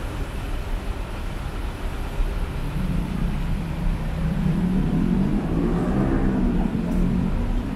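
City street traffic: a steady low rumble of road vehicles, with one engine growing louder from about three seconds in, its pitch rising a little as it passes.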